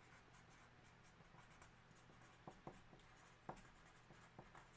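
Near silence: quiet room tone, with a handful of faint light clicks in the second half.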